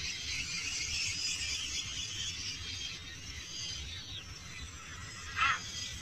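Rainforest bird chorus: many birds chattering and calling together at high pitch, with one short, harsh squawk near the end.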